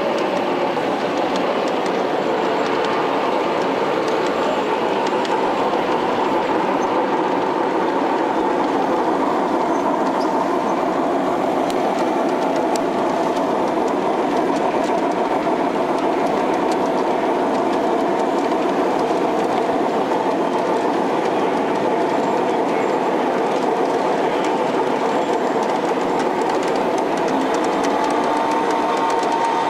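G scale model trains rolling along the track: a steady, even clatter of wheels on the rails.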